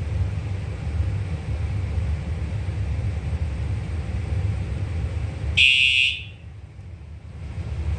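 A fire alarm horn strobe sounds a single short blast about five and a half seconds in, signalling that the smoke detector has gone into alarm on walk test. A steady low rumble runs under it.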